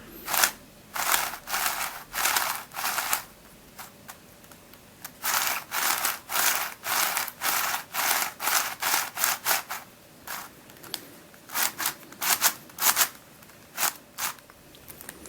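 Plastic Witeden 4x4x3 Mixup twisty puzzle being turned by hand: a series of short clicking scrapes as its layers turn, in quick runs, with a pause of about a second and a half early on.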